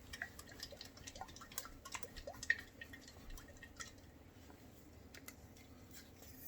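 Faint liquid sloshing and small irregular clicks from a cream whipper siphon of cake batter being shaken after a gas charger goes in, mixing the gas into the batter.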